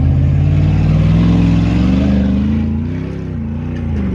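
Hummer H2's 6.0 V8 engine pulling under load, its revs climbing steadily and then rising and falling a few times near the end.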